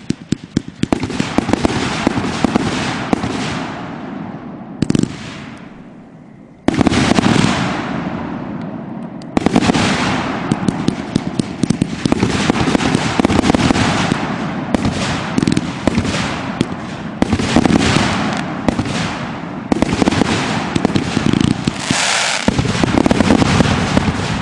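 Consumer fireworks firing in rapid succession: dense popping and crackling from launches and crackling glitter breaks. There is a lull about five seconds in, then it starts again sharply near seven seconds and keeps going in waves.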